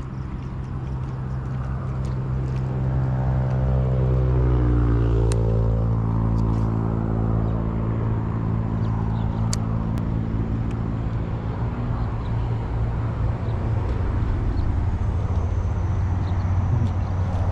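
Motor vehicle engine drone. A passing engine's pitch falls from about three to five seconds in, and the sound is loudest around five seconds. A few faint sharp clicks.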